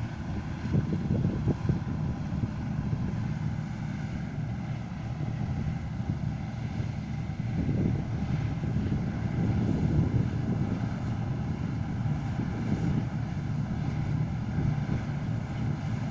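Bizon Z056 combine harvester running while it harvests wheat: its diesel engine and threshing machinery make a steady low drone with a few faint steady whining tones above it.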